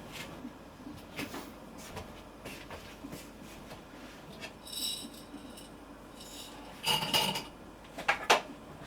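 Dishes and utensils being handled: scattered light clicks and knocks, a ringing clink about five seconds in, and a cluster of louder clattering knocks near the end.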